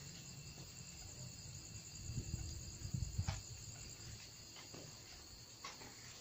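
Crickets chirping in a steady high-pitched trill, with a few soft footsteps and rustles in the middle.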